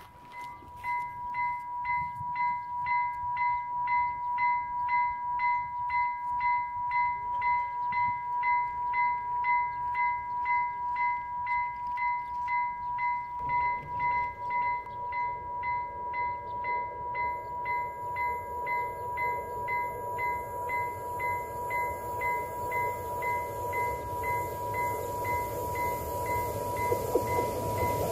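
Level-crossing warning bell ringing with a steady electronic ding about twice a second, the signal that a train is approaching and the crossing is closed. About halfway through, a rushing noise joins beneath it and grows toward the end as the train nears.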